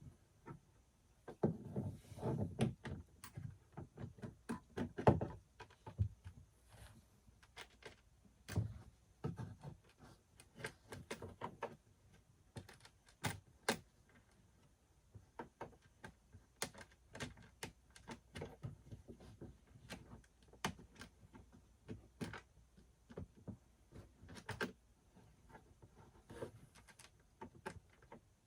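Hands working on kayak outfitting parts: scattered clicks, taps and knocks with duller thumps in the first few seconds, the loudest about five seconds in.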